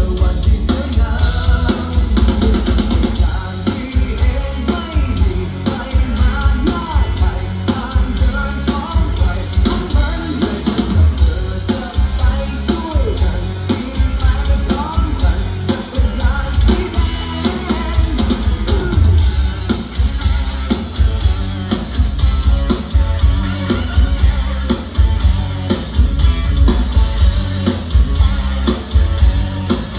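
Rock song with a singing voice, electric guitar and drum kit, played loud through a car audio system with GJ 8-inch midrange door speakers and a 12-inch GJ subwoofer, the bass heavy and prominent.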